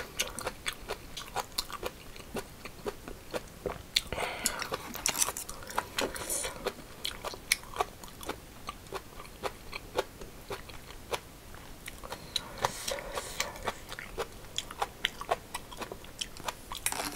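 Close-miked chewing of food: wet crunches and mouth clicks, many small sharp sounds in an irregular stream. Near the end, chopsticks click against a stainless-steel bowl as food is mixed into rice.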